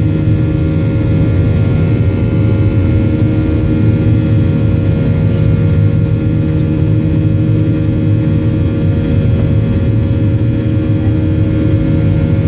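Airliner's jet engines heard inside the passenger cabin during the climb after takeoff: a loud, steady rumble with several steady tones on top.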